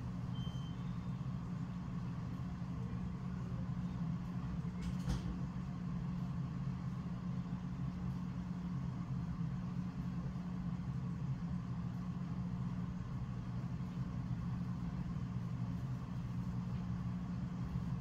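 Steady low mechanical hum with a faint higher tone above it, and a single click about five seconds in.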